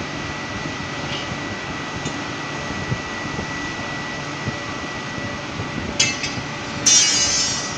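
Industrial wet vacuum cleaner running with a steady whine while sucking up oil. Two louder hissing surges come near the end, the second the longer.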